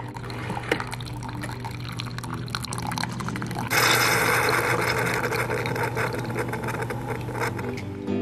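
Single-serve pod coffee maker brewing: a thin stream of coffee pouring into a ceramic mug over a steady low machine hum. The pouring grows louder about four seconds in.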